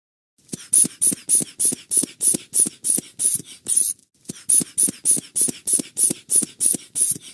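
Rhythmic, hissy repair-work sound effect: quick strokes, about three a second, in two runs with a short break about four seconds in.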